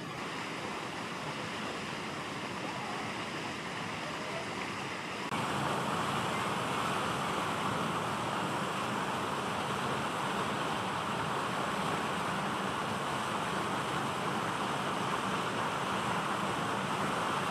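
Steady rushing outdoor background noise, like wind on the microphone, with no distinct calls or knocks. It gets a little louder about five seconds in.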